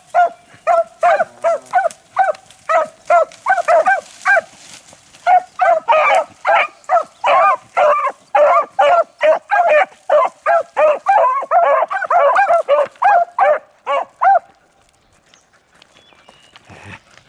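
Pack of beagles giving tongue in short, rapid barks while trailing a rabbit's scent. The calls start sparse, thicken into several hounds overlapping about six seconds in, and stop suddenly about fourteen seconds in.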